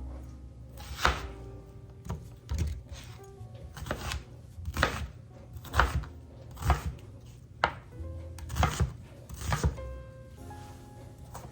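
Knife chopping an onion on a cutting board: sharp chops about once a second, some in quick pairs, over background music.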